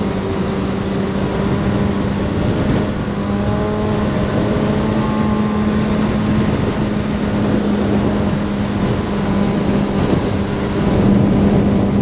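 Motorcycle engine running at a steady cruising speed, a constant drone with wind rushing over the microphone.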